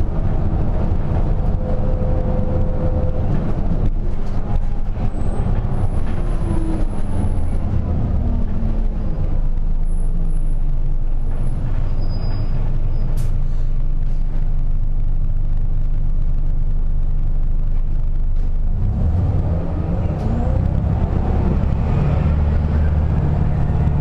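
City bus engine and drivetrain running, heard from inside the cabin. The engine note falls a few seconds in as the bus slows, then rises again near the end as it pulls away.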